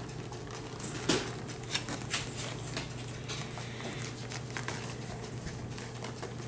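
Light scuffling and tapping as beagles shift about in a plywood whelping box, with a few sharper knocks about a second in, over a steady low hum.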